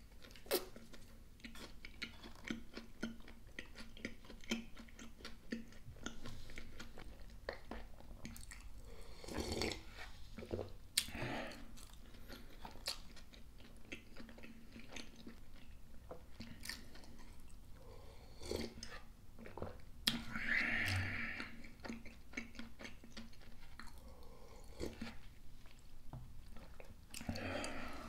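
A person chewing food close to the microphone, with many small mouth clicks and a few louder, longer mouth noises.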